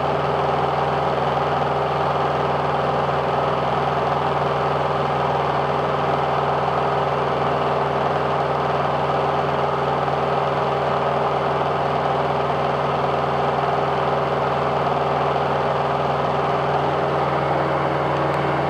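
Single-engine propeller aircraft's engine and propeller droning in level cruise flight, a steady even hum that holds the same pitch throughout.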